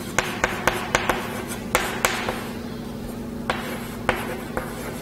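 Chalk on a chalkboard as words are written: a string of irregular short taps and scratches, with a quieter stretch just before the middle.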